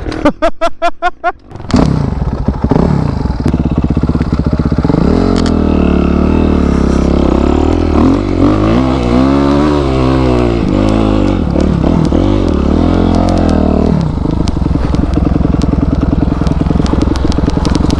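250 cc off-road motorcycle engine running, revved up and down several times about eight to eleven seconds in, then held at a steadier speed near the end.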